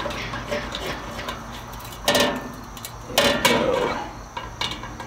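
Screwdriver tightening the screws that hold the handle on a sheet-metal smoker wood chip box: small metallic clicks and scrapes, with two louder metal clanks about two and three seconds in.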